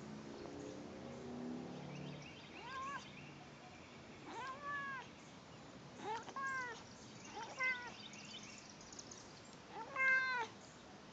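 Shaded silver Persian cat meowing over and over, with short meows that rise and fall in pitch, one every second or two. The loudest meow comes near the end.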